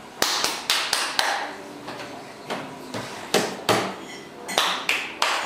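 Hands slapping and drumming on a plastic high chair tray: about a dozen sharp, irregular taps, in quick runs with short pauses between.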